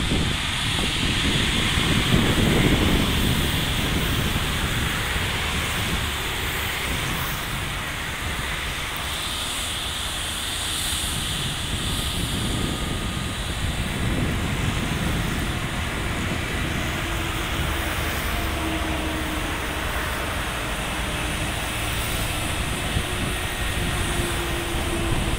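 Airbus A320-family airliner's jet engines running at taxi power as it rolls along the taxiway: a steady engine noise with a higher whine that swells now and then.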